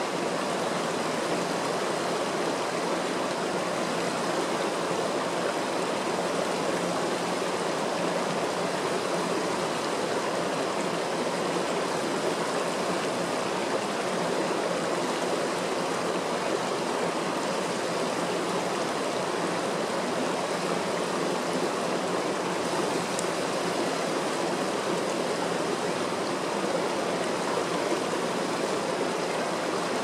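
Mountain stream running over rocks: a steady, even rush of water.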